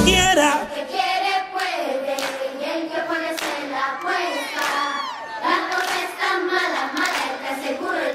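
Dance music cuts off right at the start, and a crowd of children cheers and screams, with whoops and some clapping.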